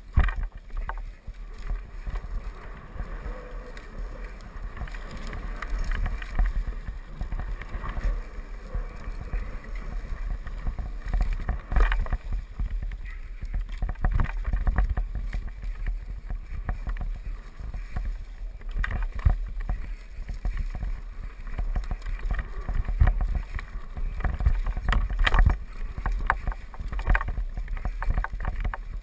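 Wind rumbling on a bike-mounted action camera's microphone as a mountain bike rides fast down a rough dirt trail, with frequent knocks and rattles from the bike jolting over roots and bumps.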